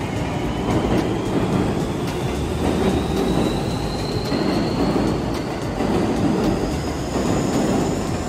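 Seibu 'Smile Train' electric commuter train pulling out and accelerating: a steady rumble and clatter of wheels on the rails, with a thin electric whine from its traction motors rising slowly in pitch.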